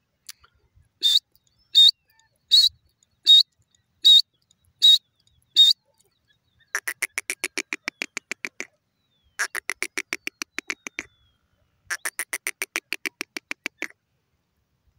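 Female grey francolin calling: seven short, sharp high notes evenly spaced under a second apart, then three runs of quick repeated notes, about six a second, each lasting about two seconds.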